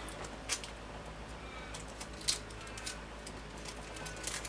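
A few light clicks from 3D printer parts being handled by hand, one about half a second in and a louder one a couple of seconds in, over a low steady hum. Faint short bird chirps come in between.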